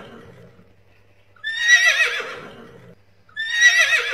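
A horse whinnying twice, each call about a second and a half long with a quavering pitch that trails off.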